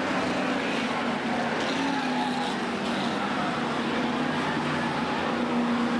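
F1 stock cars' engines running on the oval track, a steady engine noise without breaks.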